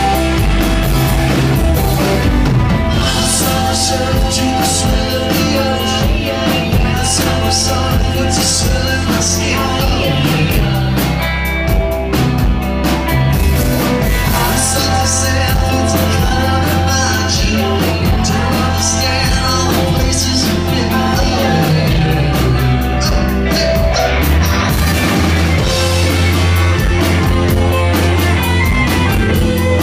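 Indie rock band playing live: electric guitars, bass and a drum kit with steady drums and cymbals, loud and dense, thinning briefly a few times.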